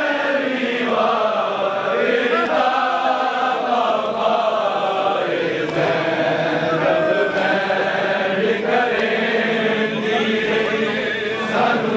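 A group of men chanting a noha, a Shia mourning lament, together in unison with a wavering, drawn-out melody.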